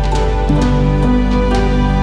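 Background music: held chords over a steady low bass, with light percussive hits at a regular pace.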